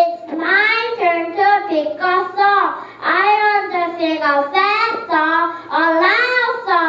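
A young child singing alone and unaccompanied, in short, high-pitched phrases with brief breaks between them.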